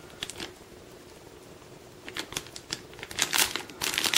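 Plastic packaging crinkling as a wrapped USB cable is opened by hand. A few faint rustles come first, then a run of crinkling and rustling about halfway in that grows louder toward the end.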